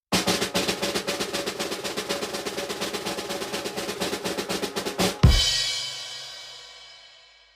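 Snare drum roll: rapid, even strokes for about five seconds, ending in a single loud hit with a bass drum and cymbal crash. The cymbal rings on and fades away.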